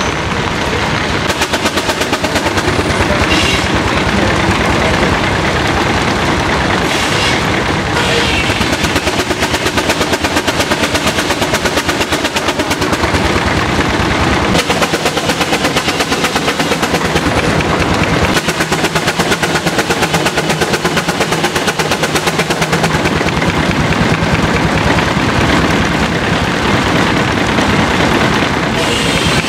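An engine running steadily with a rapid, even exhaust beat, many sharp pulses a second.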